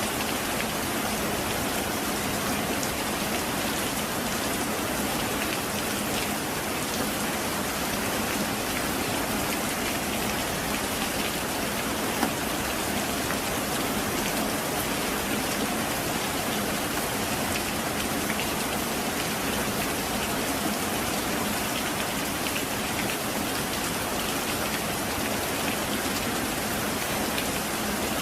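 Heavy rain falling steadily, an even hiss of countless drops with no let-up. There is one brief louder tick about twelve seconds in.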